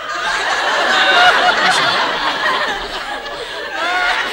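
An audience laughing and chuckling, many voices together, swelling at the start and easing off a little past the middle.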